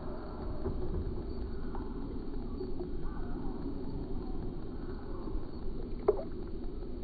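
Water sloshing around a hand releasing a crappie at the surface, over a steady low rumble, with one short sharp splash about six seconds in.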